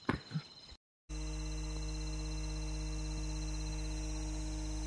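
Steady hum of several held tones over a strong low drone, starting suddenly about a second in after a brief gap of silence.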